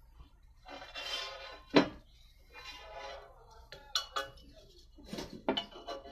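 Several sharp clinks and knocks of hard objects, the loudest about two seconds in, with smaller ones about four seconds in and near the end.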